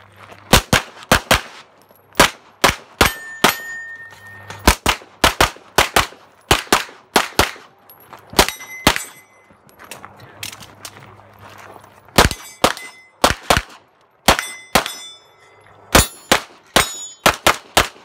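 Rapid pistol fire, likely a 9mm 2011, with dozens of shots mostly in quick pairs and a few short pauses between strings. Several hits are followed by a short metallic ring as steel targets are struck.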